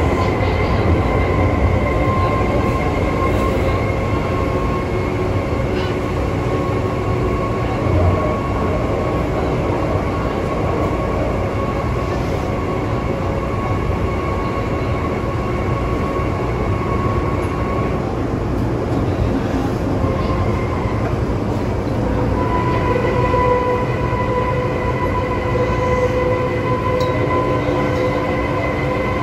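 MTR M-train electric multiple unit running, heard from inside the car: a dense rumble of wheels on track under a steady, high whine from the traction equipment, the "ghost howl" this train is known for. The whine fades out about 18 seconds in and returns louder from about 22 seconds.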